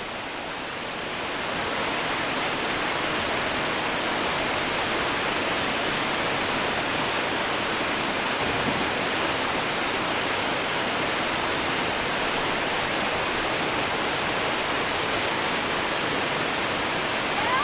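Waterfall pouring steadily into its pool, an even rushing hiss that rises a little over the first two seconds and then holds.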